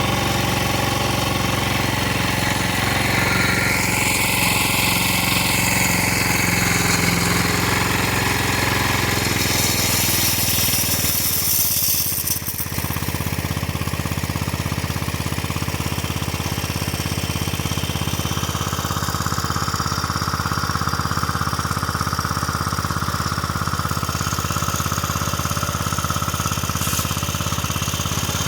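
Irrigation pump set's engine running steadily at a constant speed, with a brief dip about twelve seconds in.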